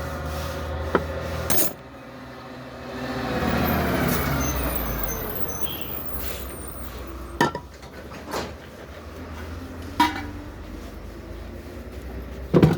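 A road vehicle passing by, its sound swelling and falling in pitch about three to five seconds in, over a low steady hum. Several sharp knocks and clanks come at intervals, the loudest near the end.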